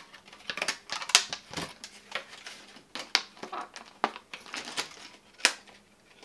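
Stiff clear plastic blister packaging crinkling and clicking as it is handled and flexed, a string of irregular sharp cracks and crackles, the loudest about a second in and near the end.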